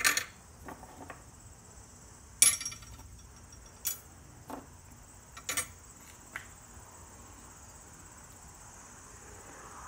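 Pieces of scrap aluminium set down one at a time on a board resting on a digital kitchen scale: about eight short knocks and clinks in the first six seconds, the loudest about two and a half seconds in. Steady high chirring of insects runs underneath.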